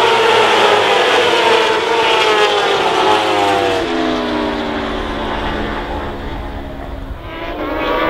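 Several racing motorcycle engines running hard as a pack goes past, their notes overlapping. Over the second half the pitches fall and the sound fades, then it swells again near the end.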